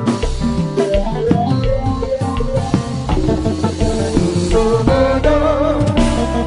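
Live kompa band playing a dense, steady groove, with drum kit and keytar.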